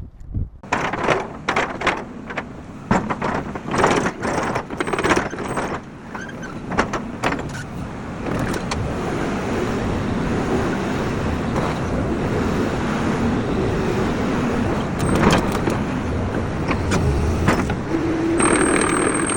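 Caterpillar 320D2L excavator's diesel engine running, with a string of sharp knocks and clanks through the first half, then a steady engine drone. A high steady whine joins near the end.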